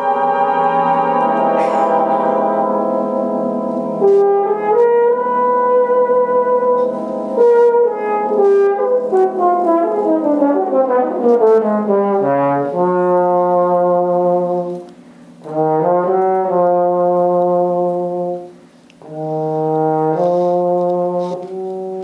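Full brass band playing slow, sustained chords, with a run of falling notes through the middle. The band breaks off briefly twice in the later part before the chords resume.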